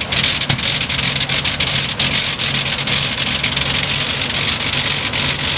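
Nieuport 24's original rotary engine running steadily, propeller turning, with a rapid crackling exhaust over a steady low drone.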